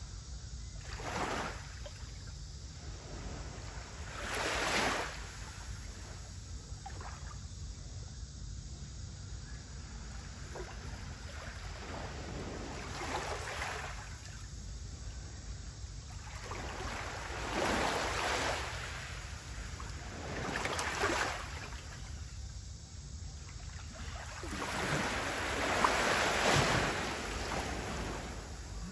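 Small sea waves lapping on the shore, a soft wash every few seconds with about six in all, the longest near the end, over a steady low rumble.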